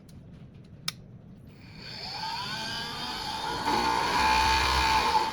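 Small electric motor of a mini bench table saw switched on and spinning up, its whine rising in pitch. It then runs louder and steady from a bit past the middle, and drops off near the end.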